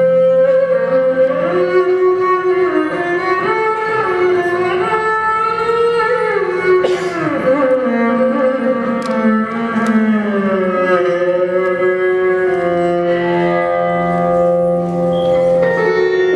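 Live instrumental music in a slow, Indian-style improvisation: a steady low drone under a melody of long held notes that slide from pitch to pitch. Near the end, new sustained notes take over.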